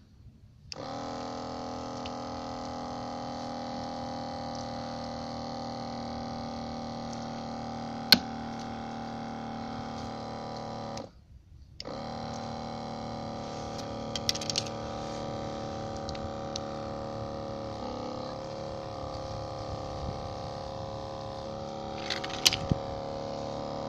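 Electric pump of a Maruyama Kiri Taisho rechargeable sprayer running on water with a steady buzzing hum. It starts just under a second in, cuts out for a moment about eleven seconds in and starts again. A sharp click comes about eight seconds in, and a few lighter clicks come near the end.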